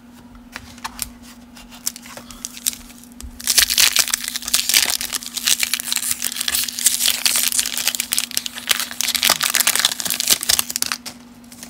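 A baseball-card wax pack being torn open by hand: its waxed-paper wrapper crinkles and tears for about seven seconds, starting a few seconds in and stopping shortly before the end. A steady low hum runs underneath.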